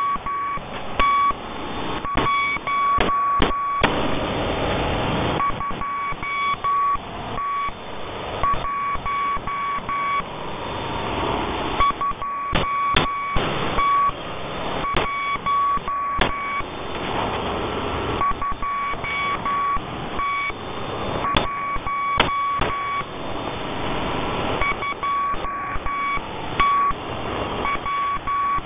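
Morse code sent over a radio: a steady high-pitched tone keyed on and off in short and long beeps, over continuous radio static with scattered crackles. A louder rush of static comes about four seconds in.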